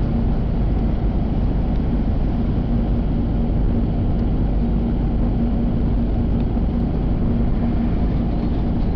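Steady engine and tyre noise inside a moving car's cabin, a low rumble with a constant drone.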